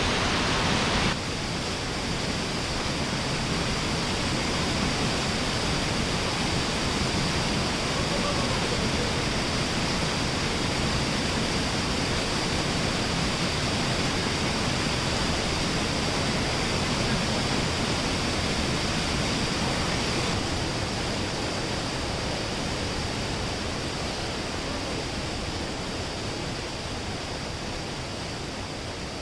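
Mountain waterfall rushing steadily, a dense hiss of falling water. It changes abruptly about a second in and gets slightly quieter about twenty seconds in.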